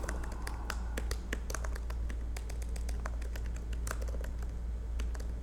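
Typing on a computer keyboard: a quick, irregular run of key clicks over a low, steady hum.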